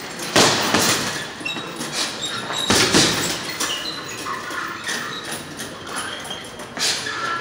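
Boxing-gloved punches landing on a hanging heavy bag: a few separate sharp thuds, two close together near the middle and another near the end, with short high squeaks between them.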